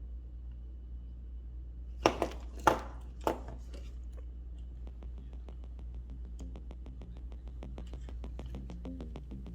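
Four sharp knocks in quick succession, then background music sets in: a fast, even ticking beat over a low bass line.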